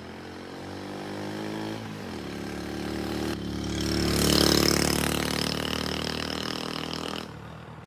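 Motorcycle engine running. Its pitch drops about two seconds in, then it grows louder to a peak around the middle and fades away, cutting off sharply near the end.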